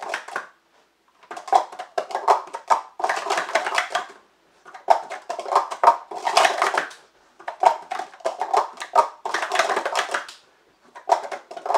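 Plastic sport-stacking cups being stacked up and down at speed on a stacking mat: bursts of rapid clattering clicks, each a second or more long, with short breaks between as the stackers take turns.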